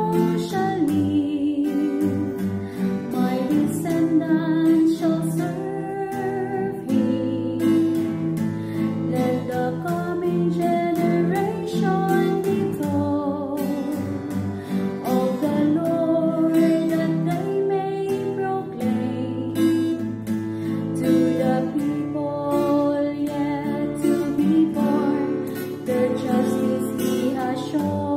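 A responsorial psalm verse sung over strummed acoustic guitar.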